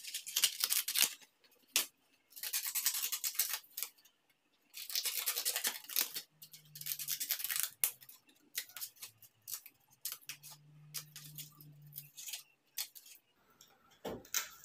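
Scissors cutting through a piece of coarse carpet: three longer runs of crisp snipping in the first half, then short separate snips.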